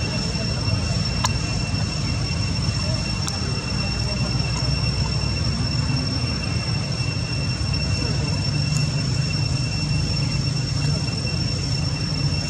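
Steady background noise: a constant low rumble with a thin, unchanging high-pitched whine over it and a few faint clicks.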